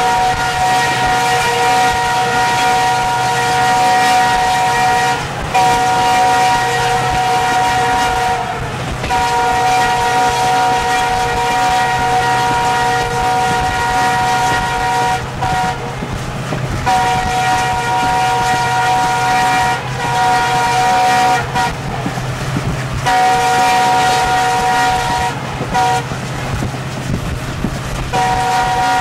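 Diesel locomotive's air horn sounding a series of long blasts, each several seconds, with short breaks between, over the steady rumble of the train running.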